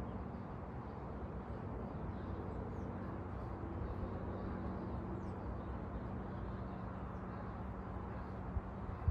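Steady low background hum of the outdoors, with a few faint, short high bird chirps now and then.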